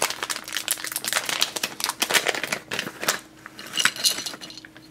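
A plastic Lego Minifigures blind bag crinkling and crackling in the hands as it is opened. The crackles are dense at first and thin to a few scattered ones after about three seconds.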